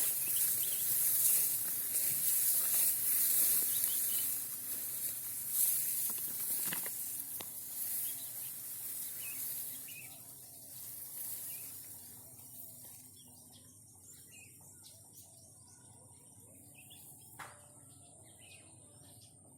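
Outdoor hiss and rustle that fades out about ten seconds in, leaving quiet rural ambience with a few faint chirps and clicks.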